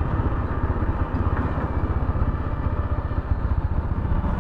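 Motorcycle engine running steadily under way, a continuous low rumble with fast even pulsing.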